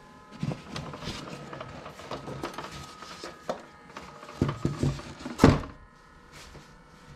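Foam egg incubator's lid being lifted off and handled: foam scraping and rubbing with a series of light knocks, the loudest about five and a half seconds in.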